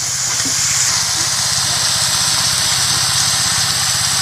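Rice snails and garlic frying in a pan, a steady sizzling hiss, over a steady low engine-like hum.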